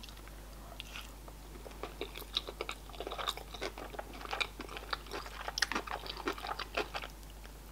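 Close-up chewing of a Philadelphia-style salmon sushi roll: a quick run of small, soft mouth clicks that starts about two seconds in.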